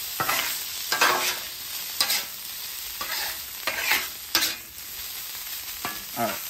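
Ground beef with onions and peppers sizzling on a Blackstone flat-top griddle while a metal spatula scrapes and chops through it. The scrapes and clacks of steel on the griddle plate come at irregular intervals, about once a second, over the steady sizzle.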